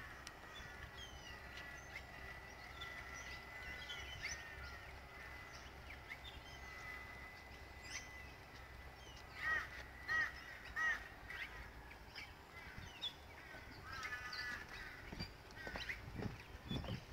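Wild birds calling around a lake, with many short chirps and whistles and a thin steady high tone for the first half. About ten seconds in come three loud calls in quick succession, and there is more chirping near the end.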